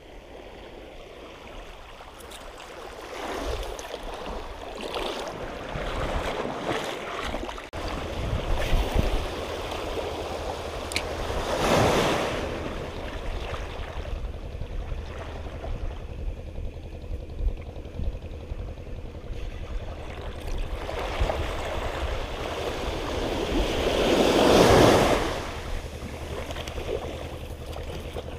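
Small sea waves washing over shallow water, swelling louder twice, about halfway and near the end, with wind noise on the microphone.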